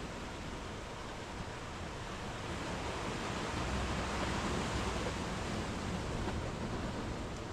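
Sea waves breaking and washing up a sandy beach between rocks, a steady surf hiss that swells louder about halfway through as a wave rushes in, then eases.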